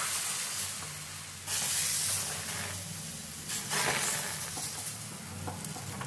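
Gram-flour dhirde batter sizzling and hissing as it is poured onto a hot, oiled tawa, swelling louder twice, about one and a half and nearly four seconds in.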